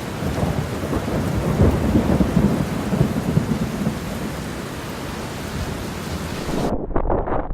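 Steady rain hiss with wind gusts rumbling on the microphone. Near the end the hiss cuts off suddenly, leaving only gusty wind buffeting.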